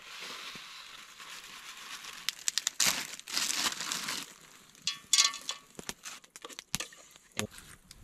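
A food packet crinkling and tearing as it is handled and emptied into an enamel pot, loudest about three seconds in and again about five seconds in, followed by a few sharp clicks.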